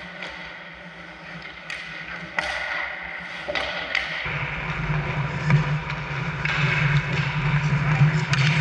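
Sharp clacks of hockey sticks and puck on the ice, several in the first half. About halfway in, a steady low hum joins and grows louder.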